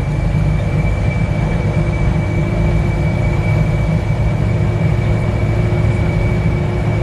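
Mitsubishi Canter 125 PS bus engine running steadily as the bus drives, heard inside the cabin: a loud low rumble with a thin, steady high whine over it.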